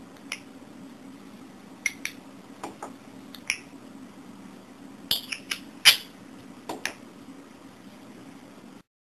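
Budgerigar making a string of short, sharp clicks and chirps, about a dozen at irregular spacing, the loudest about six seconds in, over a steady low hum.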